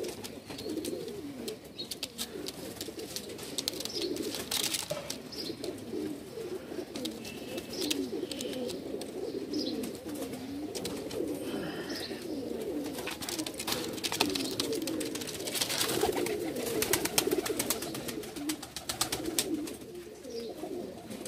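Domestic pigeons cooing, many birds overlapping in a continuous low warble, with scattered short clicks and knocks that come thickest a little past the middle.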